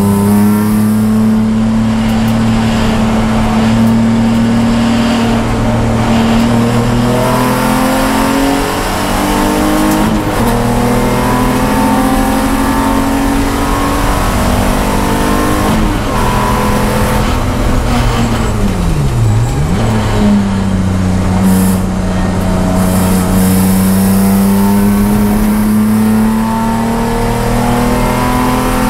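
Race car engine heard from inside the cockpit, pulling hard at high revs with a steadily rising note. It steps down at upshifts about a quarter and a third of the way in. Just past the middle the pitch dips sharply and climbs straight back as the driver brakes and downshifts, then it rises again under full throttle.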